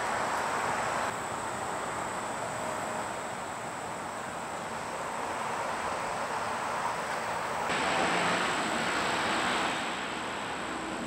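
Steady outdoor background rush, like distant traffic or wind, with a faint steady high whine over it. The rush changes level abruptly about a second in and again twice near the end.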